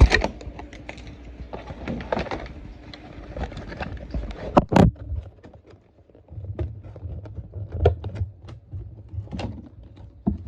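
Hands working a plastic dinosaur toy to pull out its plastic tab: scattered clicks, knocks and rustles of plastic handling, with a sharp knock at the start and another about four and a half seconds in.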